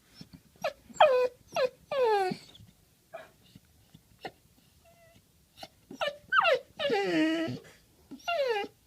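Young black Lab / Australian Shepherd mix puppy whining in high-pitched, falling cries, several short ones in a burst, a quiet pause of about three seconds, then another burst with one longer cry near the end. It is the excited whine she gives on seeing a dog she likes.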